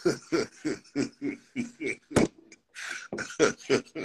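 A person laughing in a quick run of short bursts, with a sharp knock about two seconds in.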